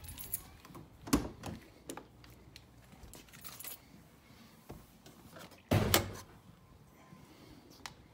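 Car keys jangling and a BMW X3's driver door being opened and handled, with scattered clicks and one heavy clunk about six seconds in.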